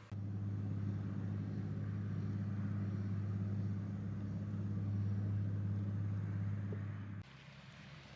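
An engine running at a steady idle, a low even hum that cuts off suddenly about seven seconds in.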